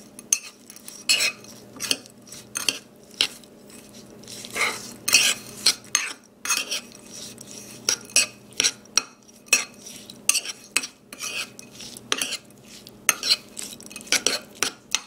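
Metal spoon stirring a thick ricotta and chocolate-chip mixture in a bowl, with irregular sharp clinks of the spoon against the bowl, a couple a second.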